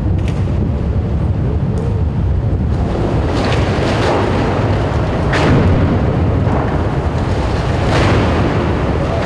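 Tunnel boring machine cutterhead grinding through the last rock of the station wall just before breakthrough: a loud, steady low rumble, with sharper cracks about five and eight seconds in.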